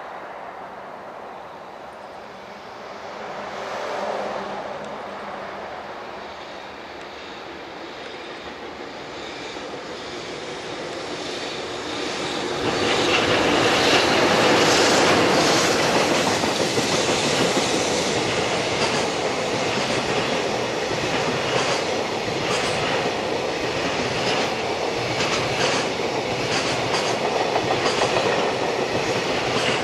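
EH500 electric freight locomotive approaching and passing, followed by a long train of container wagons. The noise grows over the first dozen seconds and turns loud about twelve to thirteen seconds in as the locomotive goes by. Then comes the steady running noise of the wagons, with a regular clickety-clack of wheels over the rail joints.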